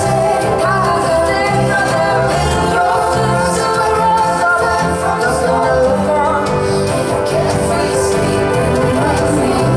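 Live band music with a woman singing lead over a moving bass line.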